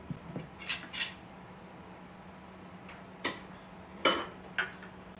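A metal spoon and utensils clinking on ceramic dishes as they are handled and set down on a plate: several short, sharp clinks, a few in the first second and three more later, the loudest about four seconds in.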